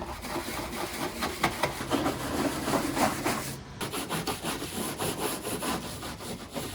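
Brisk scrubbing on the plastic body cladding of an Isuzu VehiCROSS, a rapid scratchy back-and-forth rubbing with a short break about three and a half seconds in, working the last of the white oxidation off the plastic.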